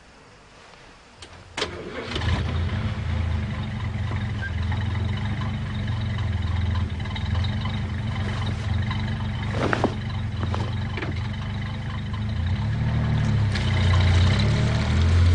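A sharp click about a second and a half in, then a vehicle's engine starts and runs steadily, with a couple of brief knocks along the way. The engine rises in revs near the end.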